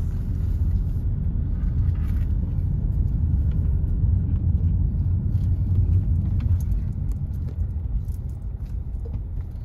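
Car driving slowly along a road: a steady low rumble of engine and tyre noise.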